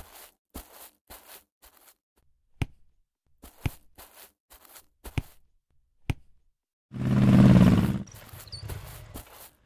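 Animation sound effects: short scuffing footsteps about twice a second, then a few sharp knocks. About seven seconds in comes a loud motorcycle engine sound lasting about a second, which drops to a lower rumble with faint squeaks.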